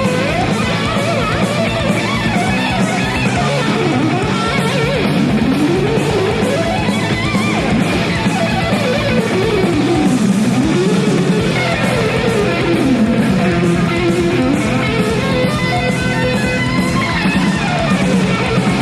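Instrumental hard rock with a lead electric guitar playing fast scale runs that sweep up and down in pitch over a driving bass and drum beat.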